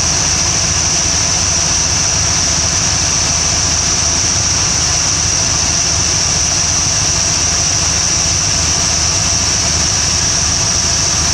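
Carbureted small-block Chevy V8 idling steadily, with a steady high-pitched whine over the low engine rumble. The engine runs at a constant idle while its manifold vacuum is read, before the carburetor's idle mixture screws are set for the highest vacuum.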